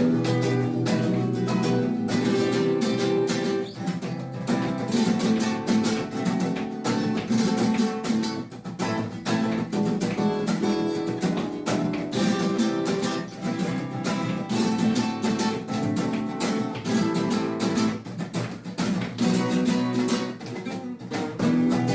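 Background music on acoustic guitar, with quick strummed chords and plucked notes in an unbroken run.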